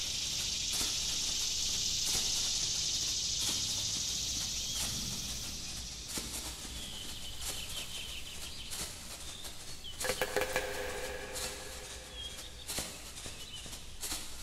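Outdoor nature ambience: a steady high hiss that fades after about six seconds, with scattered short bird calls and clicks, and a louder pitched call about ten seconds in.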